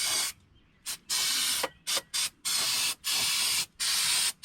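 Aerosol can of brake cleaner spraying in a series of hissing bursts, about seven in four seconds, some long and some very short, to flush dirt out of a car's rear lower control arm spring seat.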